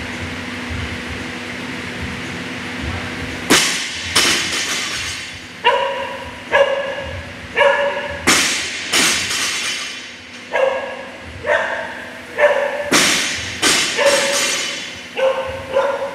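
A dog barking over and over, starting about three and a half seconds in: roughly one sharp bark a second, about fifteen in all.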